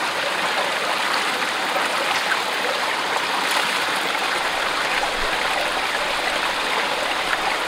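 A forest stream running steadily, an even, continuous sound of flowing water.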